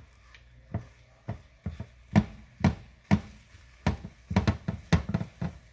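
Spatula knocking against a frying pan while breaking up scrambled eggs: a run of sharp taps, about two a second, coming quicker near the end.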